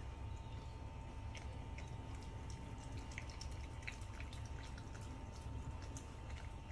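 Beagle eating a soupy chicken-and-rice broth from a bowl: faint, irregular wet lapping and chewing clicks over a low steady hum.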